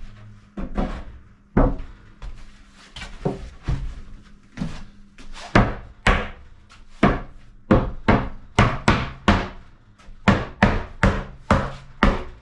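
Hammer or mallet blows on a wooden cabinet, about two dozen sharp knocks, most likely driving its joinery together during assembly. The blows are spaced out at first and come faster, two or three a second, from about halfway through.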